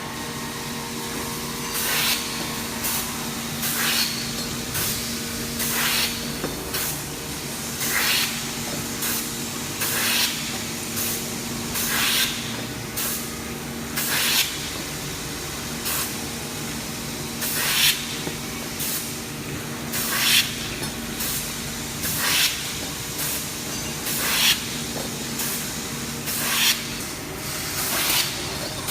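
Small engine running steadily, with a loud hissing puff repeating about every 0.7 seconds.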